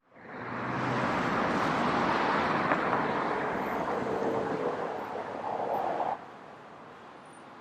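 A motor vehicle running, with a steady rushing road noise that fades in over about a second and cuts off abruptly about six seconds in.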